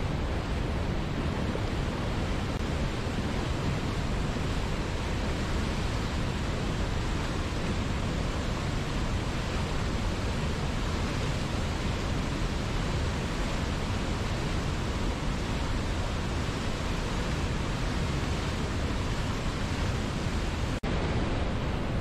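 Steady rush of whitewater: a mountain river's rapids and waterfall pouring over boulders, a dense, even roar with plenty of low rumble. A split-second break in the sound comes near the end.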